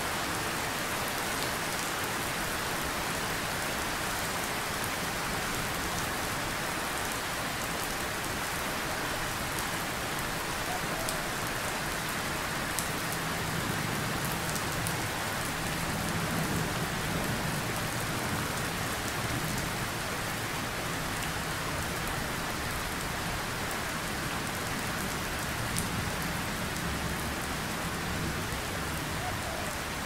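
Steady heavy rain falling, with scattered sharp drop ticks. A low rumble of distant thunder swells through the middle and again near the end.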